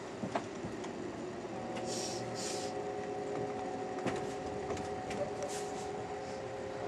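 Passenger train running, heard from inside the car: a steady rumble with a few sharp clicks from the wheels, two short hisses about two seconds in, and a steady whining tone that sets in about a second and a half in and holds.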